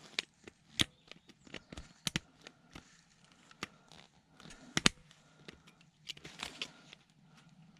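Scattered light clicks and rustles of the small plastic and metal parts of a dismantled handheld radio microphone being handled and turned over, with a few sharper clicks about one, two and five seconds in.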